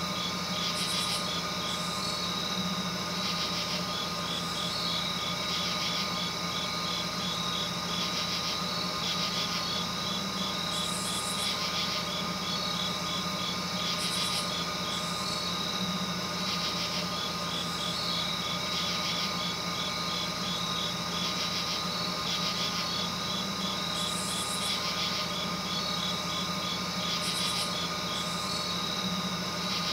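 Steady night ambience: insects chirping in fast, regular pulses, with higher buzzy trills every few seconds, over a constant low hum.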